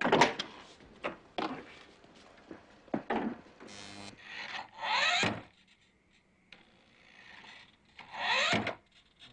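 Handling noises (rustling, clicks and knocks), then a small electric motor whirring up briefly twice, about five seconds in and again near the end, as a remote-control toy car is set going.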